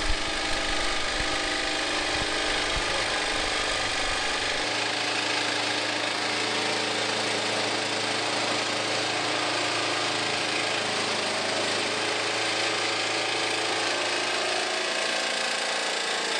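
Electric power tool cutting the access opening in a sheet-metal kitchen exhaust duct along the template lines, running steadily without a break.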